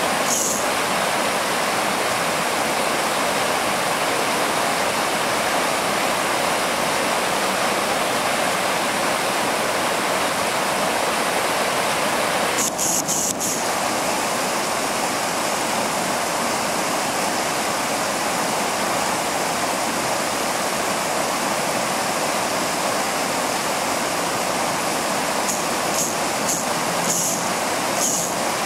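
Steady, even rushing noise that holds at the same level throughout, with a few brief clicks about halfway through and again near the end.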